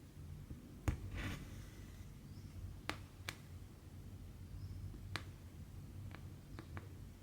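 A cross-stitch needle clicking as it pokes through stiff counted-cross-stitch fabric, about seven sharp ticks spread irregularly, with a brief rasp of thread being drawn through just after the first. A low steady hum lies underneath.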